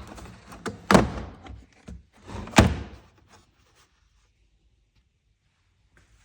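The case of a snap ring plier set being opened and handled: three sharp knocks about a second apart, with lighter clicks between them, then quiet for the last three seconds.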